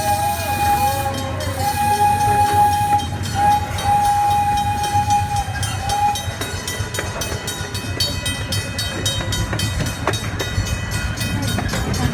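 A park train's whistle sounds one steady note in three blasts over about the first six seconds. Then the train runs on over the rails, with rapid clicks of the wheels over the rail joints.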